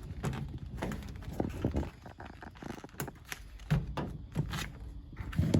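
Irregular light clicks and knocks of plastic water-line tubing and push-in fittings being handled and connected on an icebank beer cooler.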